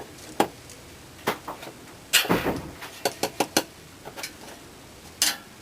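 Scattered clicks and knocks of a metal hemostat working inside an electrical wall box, with a longer scraping rustle about two seconds in, as dead-bird remains are pulled out.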